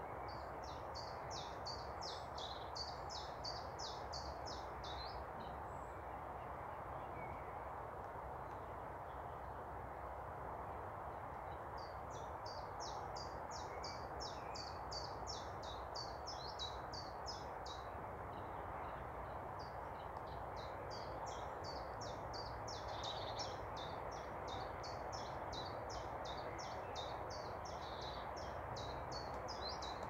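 Small songbird singing long runs of rapid, evenly repeated high notes, about five or six a second, in three bouts of several seconds each, over steady background noise.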